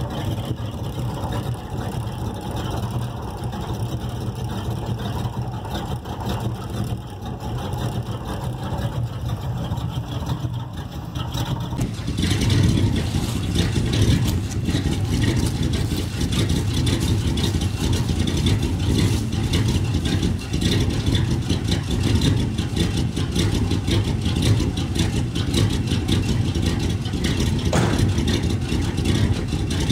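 1978 Chevrolet farm truck's engine idling steadily at about 500 rpm while it warms up after a cold start. At first it is heard muffled from inside the cab; about twelve seconds in it turns louder and fuller.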